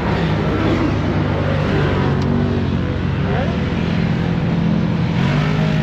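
Can-Am Maverick X3 side-by-side's engine idling steadily, its pitch shifting slightly a couple of times.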